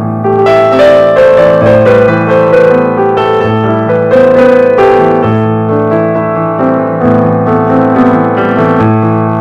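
Background piano music, a gentle melody over sustained chords.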